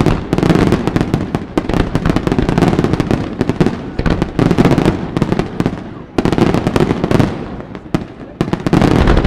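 Aerial fireworks display: a dense, continuous barrage of rapid bangs and crackling reports from pyrotechnic shells, easing briefly a few times before building again.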